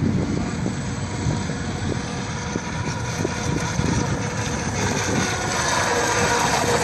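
Model motorboat's engine running out on the lake, a steady drone with a whine that grows louder about five seconds in, over wind on the microphone.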